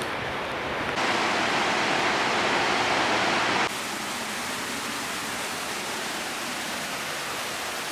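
Large waterfall, the Rhine Falls, a steady rush of falling water. It turns louder and brighter about a second in, then drops back abruptly a little over two and a half seconds later.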